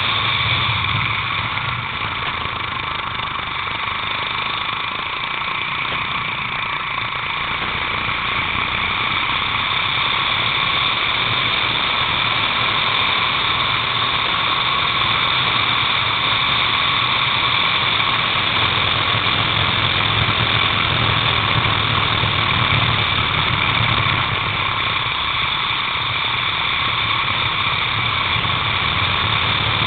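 Racing kart engine running hard at race speed, heard from a camera mounted low on the kart, with a steady high whine over it. The sound drops a little twice, early and again near the end, then picks back up.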